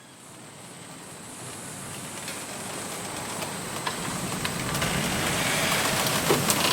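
Wind gusting through a bamboo grove, swelling from faint to loud, with bamboo stalks creaking and knocking against each other in scattered clicks.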